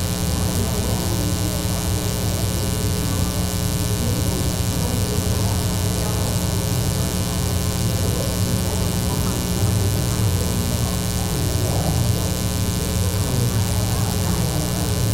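Steady electrical hum and buzz, a stack of even tones that does not change.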